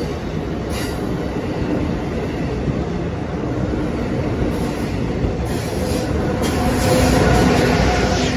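Amtrak Acela Express trainset rolling past along the platform: a steady rumble of wheels on rail from the passenger cars. The noise grows louder near the end as the electric power car goes by.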